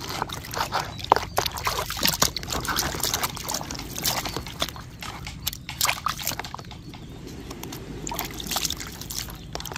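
Water sloshing and splashing in a plastic basin as a plastic action figure is dunked and swished about by hand, in irregular splashes that are busiest in the first half and ease off for a moment past the middle.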